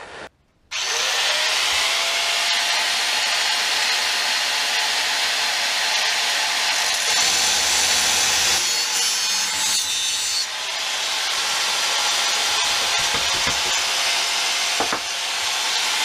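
Angle grinder cutting through an old steel motorcycle fork stanchion. The motor spins up just under a second in and runs steadily with the continuous hiss of the cut, easing briefly about ten seconds in.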